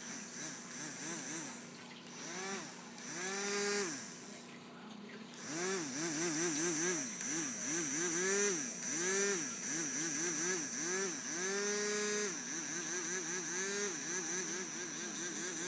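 A toddler babbling in a sing-song run of short rising-and-falling syllables, several a second, over the steady hum of a small motor from a battery bubble-blowing toy.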